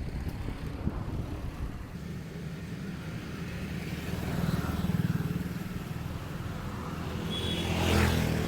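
Motor vehicle engines passing on a road: an engine hum that swells twice, the louder pass near the end, with a brief high beep just before it.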